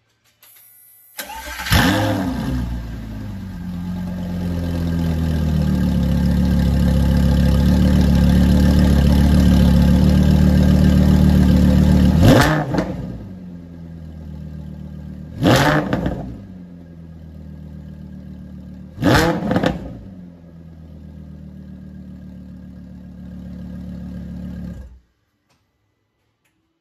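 Lamborghini Gallardo Superleggera V10 through a Larini aftermarket exhaust. It starts about a second in with a quick flare of revs and settles into a loud, steady high idle. Then come three sharp throttle blips, with the idle sitting lower after the first, and the engine cuts off suddenly shortly before the end.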